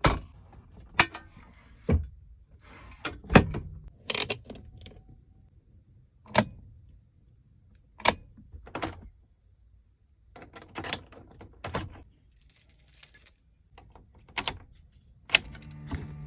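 Car keys jangling, with scattered sharp clicks and clunks. Near the end a steady low hum starts.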